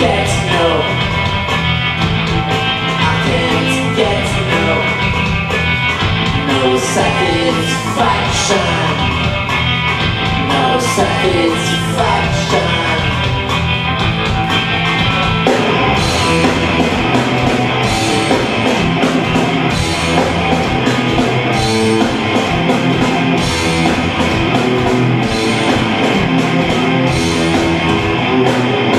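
Live rock band playing on stage, with drums, guitar and a male lead singer's voice over the mix.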